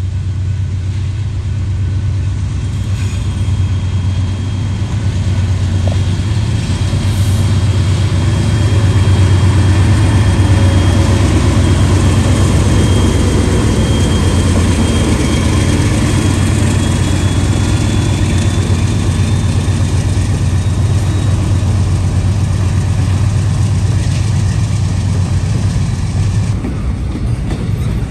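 Diesel locomotive of a double-stack container train passing close by, its engine running with a steady deep drone that is loudest as the lead unit approaches. Shortly before the end the engine drone drops away.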